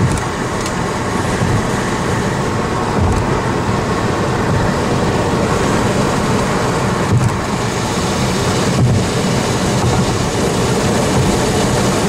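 Car driving at highway speed, heard from inside the cabin: a loud, steady rush of road and wind noise.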